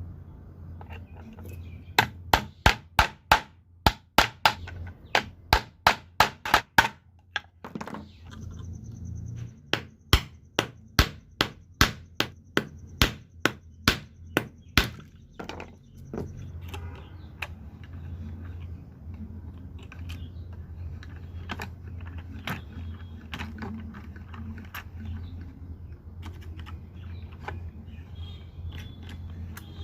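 Two runs of sharp knocks, about three a second, each run lasting around five seconds, then fainter scattered knocks, over a low steady hum.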